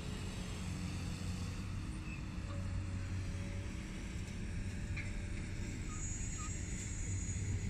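Steady low rumble of vehicle and machinery noise around a railway freight yard, with a few faint short chirps.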